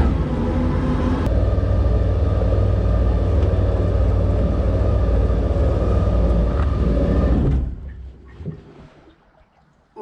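Jet boat engine running steadily just after starting, then stopping about seven and a half seconds in.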